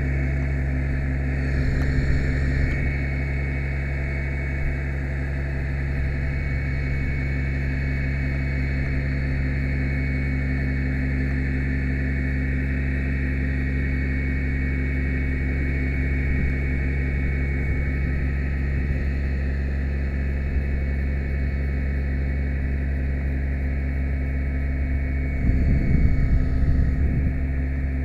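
Ladder truck's engine running steadily at a raised speed to power the aerial ladder's hydraulics as the ladder is raised, with a faint high steady whine over it. The sound swells briefly about two seconds in, and again for a couple of seconds near the end.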